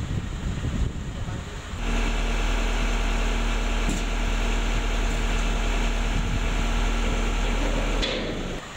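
A tanker truck's engine idling steadily, starting abruptly about two seconds in and cutting off abruptly near the end. Before it, a rougher clattering rumble.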